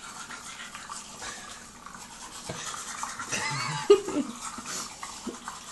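Toothbrush scrubbing teeth, a steady brushing with a brief vocal sound partway through.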